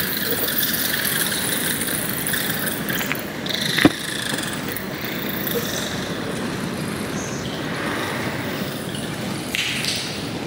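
A large colony of bats flying in a cave, a dense steady chatter of high squeaks and fluttering wings. A single sharp click about four seconds in.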